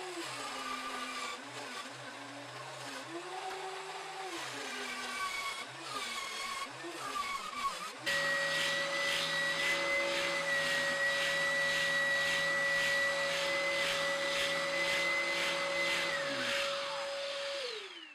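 Electric power-tool motor running, its pitch wandering up and down. About halfway through the sound cuts abruptly to a louder, steady high whine with a fast rhythmic chatter, which winds down in pitch as the motor is switched off near the end.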